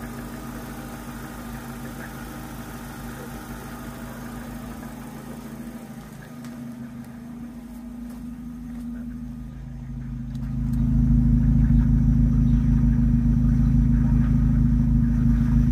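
Opel Astra engine idling steadily while it warms up. The hydraulic lifter clatter has been quieted by an oil additive, and the light ticking that remains is taken by the owner for the tank vent valve, not the lifters. About ten seconds in, the engine hum becomes clearly louder.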